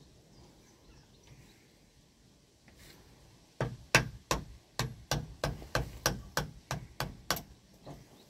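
Wooden mallet tapping a small blade into the end of a wooden staff to shape it. About fifteen sharp knocks start about three and a half seconds in, coming three to four a second and getting softer near the end.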